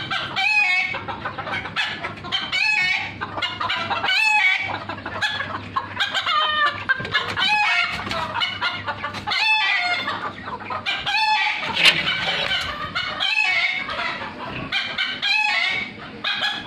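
Bantam chickens clucking and calling over and over, with crowing among the calls.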